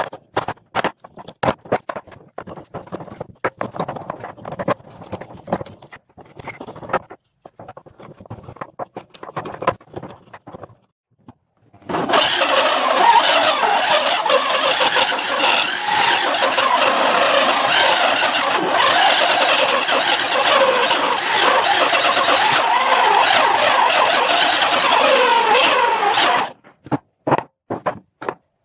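Scattered knocks and taps from handling wood, then a power tool working wood for about fourteen seconds, loud and steady, cutting off suddenly, with a few taps after.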